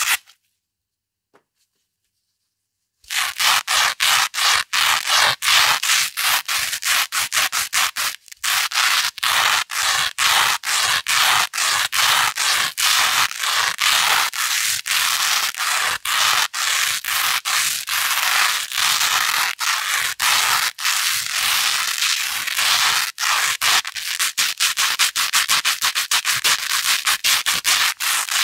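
Velcro hook roll rubbed back and forth against Velcro loop rolls close to the microphone: rapid scratchy strokes, several a second. The rubbing starts after about three seconds of silence and pauses briefly near eight seconds.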